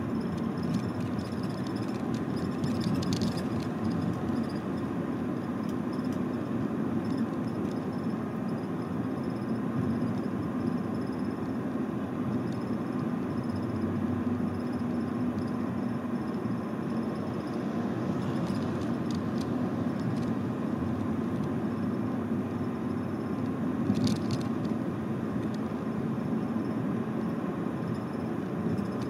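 Steady low noise of a motor vehicle or road traffic, with a few brief clicks or rattles, the sharpest about four-fifths of the way through.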